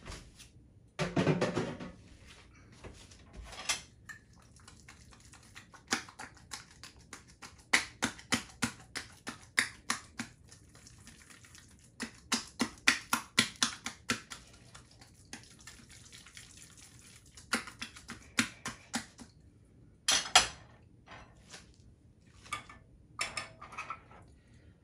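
Metal spoon tapping and scraping against a ceramic ramekin as thick genfo porridge is pressed into shape, a quick irregular run of small clicks and knocks, with a louder clatter about twenty seconds in.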